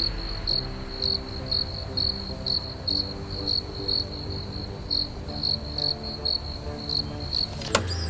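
A cricket chirping at an even pace, about two chirps a second, over soft sustained music chords. A sharp hit sounds near the end.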